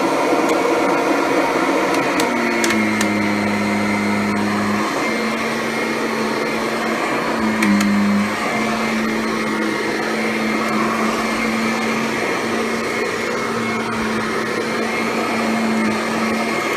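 Kirby Ultimate G Diamond Edition upright vacuum cleaner running steadily on carpet, a continuous motor-and-fan hum with a steady tone. The tone shifts slightly about two and a half seconds in and again around eight seconds.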